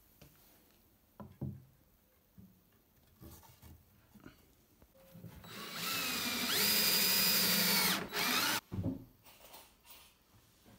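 DeWalt cordless drill driving a screw into plywood: one run of about two and a half seconds, its motor whine rising in pitch partway through, then a short second burst. A couple of light knocks come a few seconds before.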